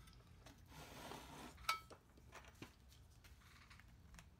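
Near silence broken by a few faint metallic clinks, the loudest about a second and a half in: small metal parts or tools handled on a workbench.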